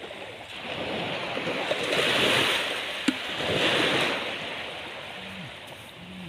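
Sea waves washing onto the shore, swelling up twice, about two and about four seconds in. A single sharp click sounds about three seconds in.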